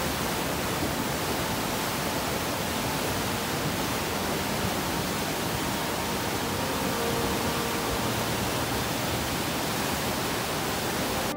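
A mountain river in flash flood rushing past, a steady dense rush of turbulent muddy floodwater.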